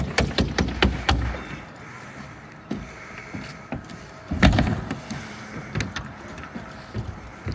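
Roofing work on a house: a quick run of sharp knocks, about four or five a second, in the first second, then a faint steady whine with scattered knocks and a louder thump about halfway through.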